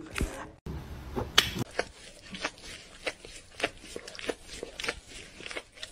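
A cat chewing, with a run of short, irregular crunching clicks, about three a second.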